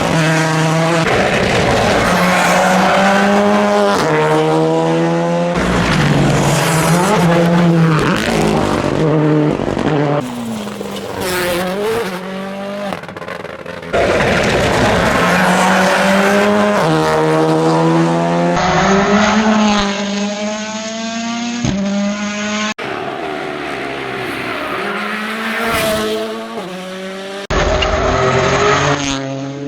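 Rally cars driven hard on a stage, in a run of short clips: engines revving high and shifting through the gears, pitch climbing and dropping repeatedly, with tyre squeal in the corners.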